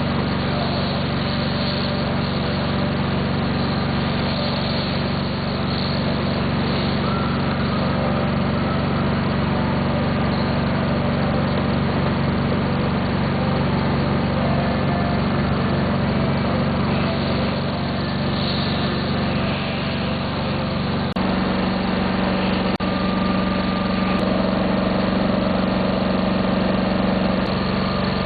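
Isomec urban-train air compressor running steadily on a test bench, a continuous machine hum. About three quarters of the way through, its note shifts abruptly and keeps running at the new pitch, with a few faint clicks.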